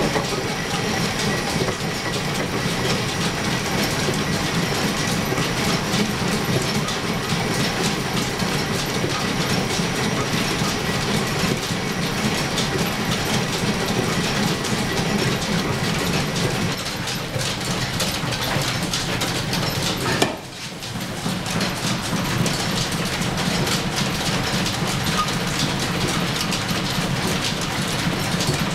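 Belt-driven metal lathe running off an overhead line shaft, with a steady clattering rattle of belts, pulleys and gears. A sharp click and a brief dip come about two-thirds of the way through, then the rattle carries on.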